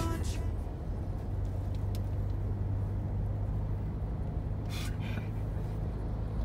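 Steady cabin drone of a moving car, road and engine noise with a low hum, heard from inside. A short soft hiss about five seconds in.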